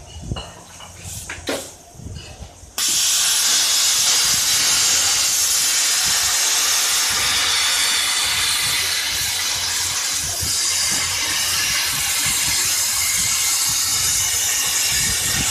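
CNC plasma cutter's torch firing about three seconds in, after a couple of light knocks, and cutting steel plate with a loud, steady hiss.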